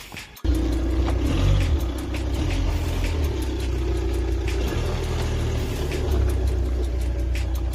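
A car running: a steady low engine and road rumble that cuts in abruptly about half a second in and holds at a constant level.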